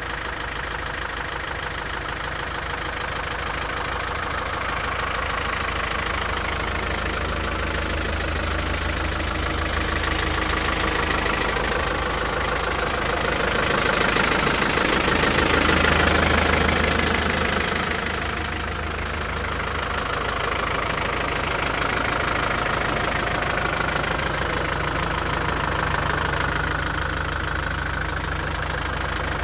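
Land Rover Defender 90's 300Tdi 2.5-litre four-cylinder turbodiesel idling steadily, growing louder for a few seconds around the middle.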